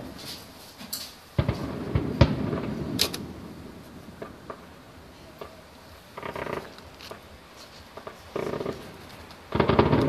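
Distant aerial fireworks: sharp cracks and several rolling booms that die away, the loudest near the end.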